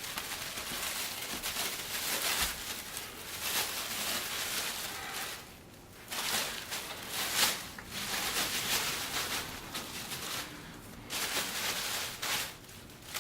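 Packaging wrap being pulled off a new bench grinder, rustling and crinkling in uneven spells with a couple of short pauses.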